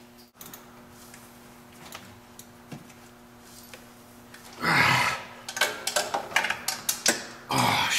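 Quarter-inch ratchet clicking in a run of short ticks as bolts on a diesel turbo are snugged up by hand. Before it comes a faint steady hum, and there is a louder burst of noise just before the clicking and another near the end.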